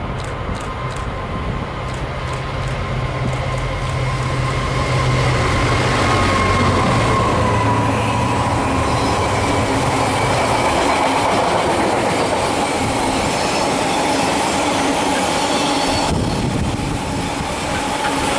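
A GBRf Class 66 diesel locomotive with its two-stroke V12 engine running passes close by. Its low engine note fades after about ten seconds, leaving a long rake of loaded flat wagons rolling past with a steady wheel rumble and a high, steady squeal from the wheels.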